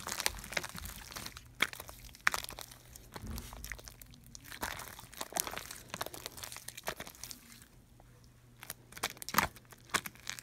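Homemade no-glue soap-and-salt slime being squished, kneaded and pressed flat by hand, giving irregular sticky crackles and small pops, with a short lull about eight seconds in.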